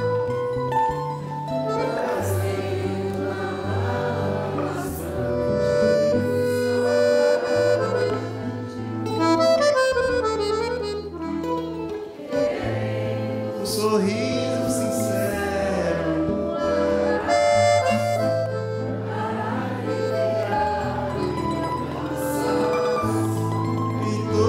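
Accordion, mandolin and acoustic guitar playing a tune live together, the accordion's sustained reedy chords over a bass line that steps between notes.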